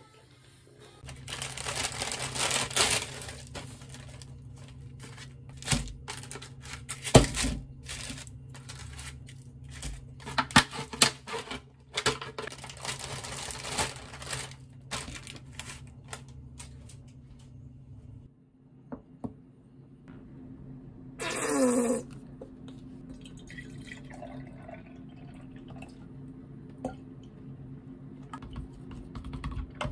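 Kitchen handling sounds: scattered clinks, taps and rustles of dishes and paper. Near the end, milk is poured from a carton into a glass.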